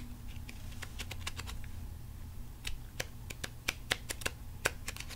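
Unsleeved trading cards being shuffled by hand, giving a run of irregular sharp card clicks that grows busier in the second half. A steady low hum of recording noise lies underneath.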